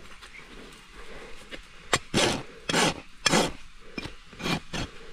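A hoof rasp drawn across a horse's hard, bare hoof in about five short strokes, starting about two seconds in after a sharp click, taking down the side of the hoof that sits higher to level it.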